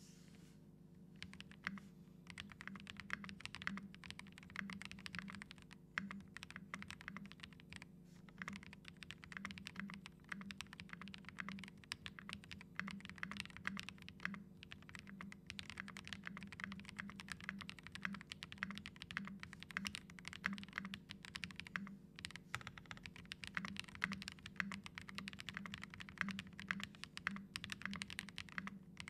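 Steady, fast typing on an Ikki68 Aurora mechanical keyboard with lubed Tecsee Ice Candy switches and transparent crystal keycaps: a dense run of key strokes starting about a second in, broken by a few brief pauses.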